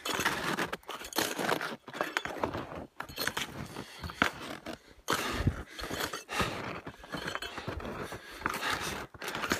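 Irregular rustling and scraping noise from a phone being handled, its microphone rubbing against a jacket as it moves, in uneven bursts about a second apart.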